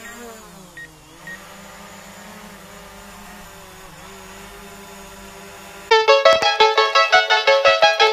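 DJI Mavic Pro quadcopter's propellers spinning up and hovering: a steady pitched whine that dips and rises in pitch at first, then holds level, with a few short high beeps near the start. About six seconds in, it cuts abruptly to loud piano-like keyboard music with regular note strokes.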